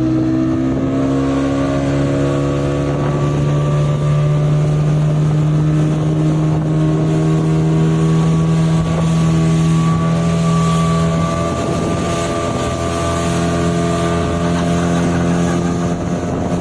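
Motorboat engine running steadily at speed, its pitch holding almost level with a slight rise.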